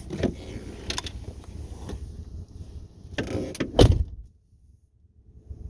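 Car door being handled with a few clicks and knocks, then shut with a thud, after which the noise drops away suddenly to a faint steady hum.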